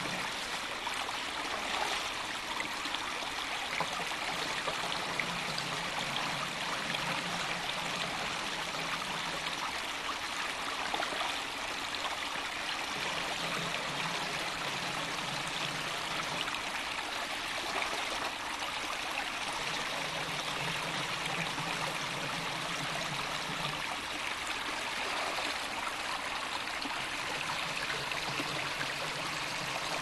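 Spring-fed forest stream running steadily over stones, with water scooped from it and poured into a plastic canister now and then.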